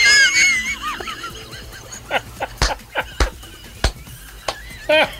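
Hard, uncontrollable laughter: a high, wavering, squealing laugh at first, then short breathless bursts and a few sharp knocks.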